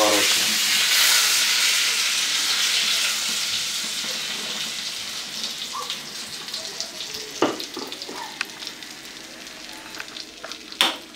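Pork steak sizzling in hot oil and butter in a frying pan, the sizzle loud at first and slowly dying down. A couple of sharp knocks of utensils, one about halfway through and one near the end.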